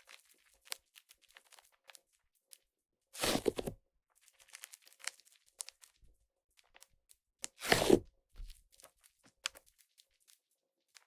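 Airy clay/butter slime made with Yoda clay being squished and stretched by hand, with a fizzy crackling of small air pockets popping. Two louder squishes come about three seconds in and near the eight-second mark, with fine crackles in between.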